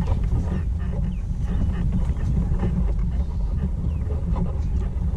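Boat motor running steadily with a low rumble as the boat is moved, with wind on the microphone.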